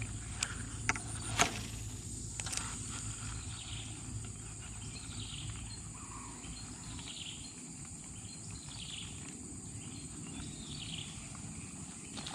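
Outdoor insect and bird ambience: a steady high insect drone, with a short bird-like call repeating about every second and a half to two seconds. A few light clicks sound in the first two and a half seconds.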